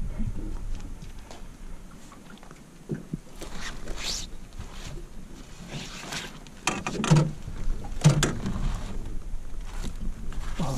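Rustling and scraping of a nylon landing net being handled, with a mulloway (jewfish) inside it on a boat's carpeted floor. The noises come in short, irregular bursts, with a few dull knocks about two thirds of the way in.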